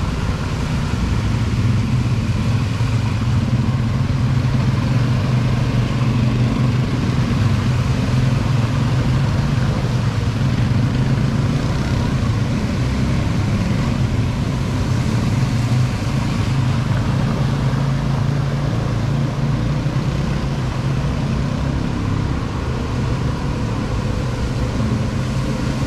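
Quad bike (ATV) engines running steadily close by as a line of ATVs drives through a muddy water crossing.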